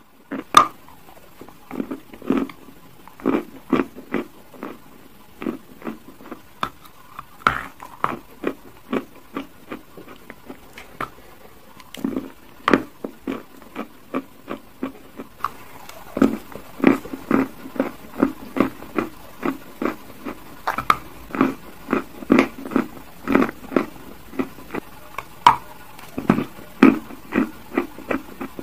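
Close-up crunching of a hard, crumbly chalk bar moulded like a chocolate bar: a few sharp snaps as pieces are bitten off, then steady chewing at about two to three crunches a second, louder and quicker from about halfway through.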